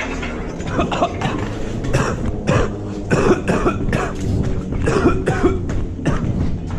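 A man gasping and grunting in short, harsh bursts, over scuffs and knocks from a handheld camera being jostled as he moves fast.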